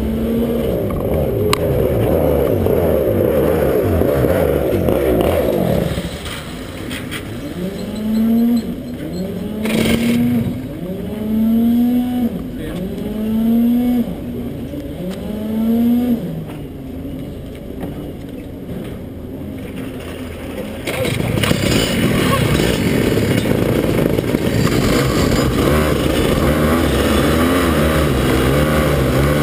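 Rotax Max two-stroke kart engines running together. After about six seconds it drops quieter, and one engine is blipped five or six times, about once every second and a half, each a short rev rising in pitch. About two-thirds of the way through, many engines get loud together.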